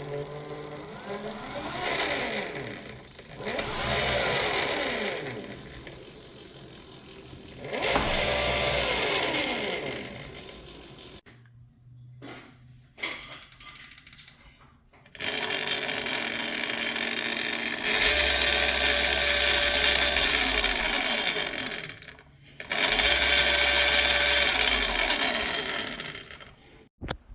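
Bafang BBSHD mid-drive e-bike motor running in several bursts, its pitch rising and falling as it speeds up and slows down, then holding steady runs that stop and start. It makes a weird rattle from inside, which the owner puts down to a bad nylon reduction gear and its needle clutch bearing.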